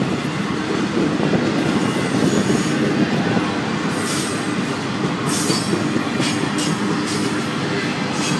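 Florida East Coast Railway intermodal freight cars, loaded with trailers and containers, rolling past: a steady rumble of steel wheels on rail, with several short high-pitched bursts in the second half.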